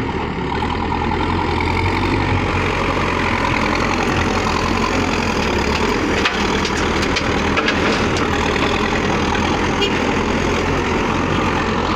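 Backhoe loader's diesel engine running steadily, with a low, even engine note throughout.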